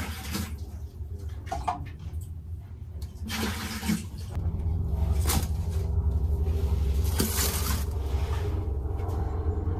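Water splashing and sloshing in a toilet bowl as it is scooped out by hand, with a sharp click about halfway through. A steady low hum starts about halfway in.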